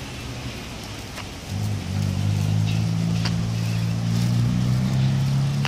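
A low, steady engine hum starts about a second and a half in and becomes the loudest sound, with a few faint short high ticks over it.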